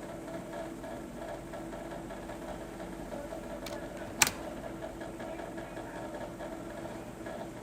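A steady machine hum, with one sharp click a little past the middle.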